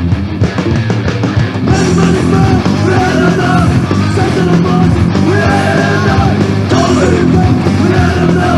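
Deutschpunk band recording: electric guitar, bass and drums playing fast and loud, with shouted vocals coming in about two seconds in.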